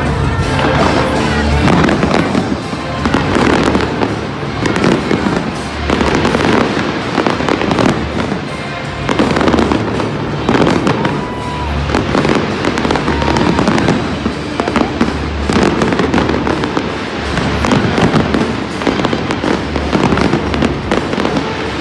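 Fireworks display with shells bursting in quick succession, a dense, unbroken run of bangs and crackles that swells and eases every second or two.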